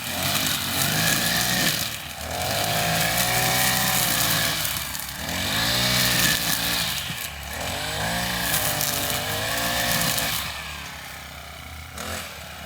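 Petrol lawnmower engine running under varying load, its pitch sagging and picking up again about every two seconds, and dropping back more quietly near the end.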